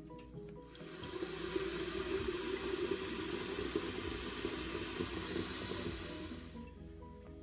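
Running water, a steady rush that starts about a second in and stops near the end, over faint background music.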